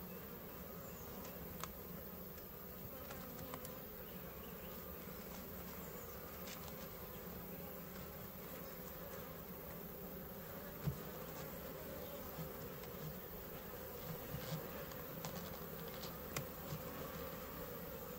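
A mass of honeybees buzzing in a steady hum over an open Layens hive, the colony stirred up by the inspection. A few light knocks sound against the hive.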